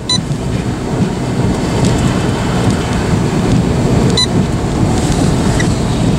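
Thunderstorm rain and wind: a loud, steady low rumble of noise, with a sharp click right at the start and another about four seconds in.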